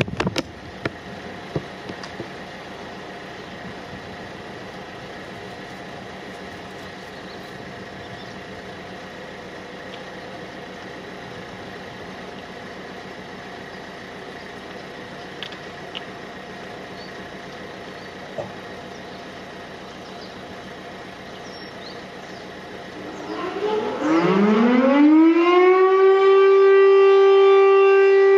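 Steady outdoor background, then near the end a French RNA-type electromechanical civil-defence siren starts up. Its pitch rises over about two seconds and settles into a loud, steady tone: the start of the continuous end-of-alert (all-clear) signal.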